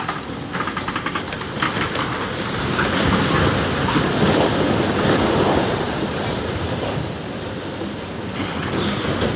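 Brick and masonry wall collapsing under a demolition excavator: a long rumbling crash of falling brick and debris, with clattering knocks in the first two seconds. It is loudest around the middle and eases off near the end.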